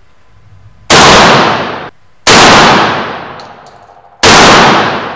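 Three shots from a semi-automatic 12-gauge shotgun firing 1-ounce slugs, about a second in and then roughly a second and a half and two seconds apart. Each shot is loud and rings on as it dies away, echoing off the concrete-block walls of an indoor range.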